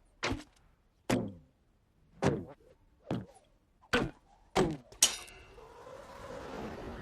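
A series of seven heavy thunks, unevenly spaced about a second apart, followed by a faint rising noise that builds over the last two seconds.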